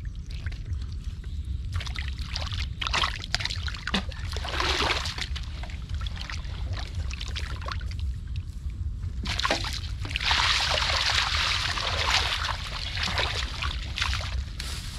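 Hands splashing and sloshing through shallow muddy water while groping for fish, in short irregular splashes, with a denser run of splashing about two-thirds of the way through.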